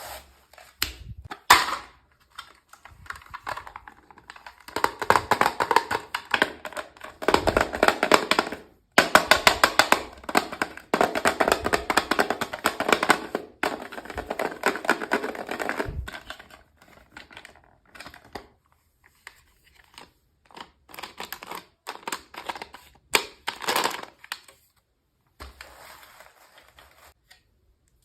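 Packaging handled and opened by hand: long runs of rapid crinkling and clicking, densest in the first half, then sparser scattered clicks and taps.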